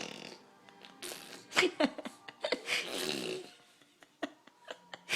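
Playful vocal sound effects: a string of breathy, noisy blasts and short pitched squeals that slide up and down.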